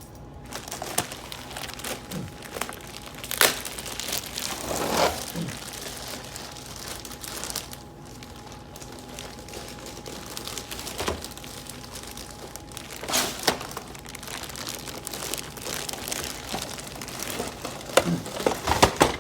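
Packaging crinkling and rustling as a robot vacuum is unpacked by hand, with irregular louder crackles and knocks, the biggest near the end.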